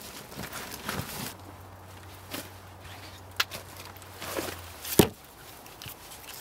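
Boots walking on soft, leaf-littered forest floor, then a sharp wooden knock about five seconds in as a sawn log is set down on a log pile.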